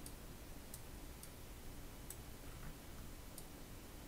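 Five faint computer mouse clicks, irregularly spaced, over a low room hum.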